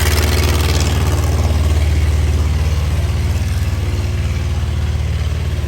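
Diesel engine of a rice combine harvester running steadily with a deep, even hum. A hiss over it fades out about a second in.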